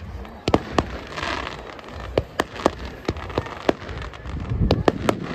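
Fireworks going off: about a dozen sharp, irregular pops and bangs, with a burst of crackling about a second in and a low rumble of reports near the end.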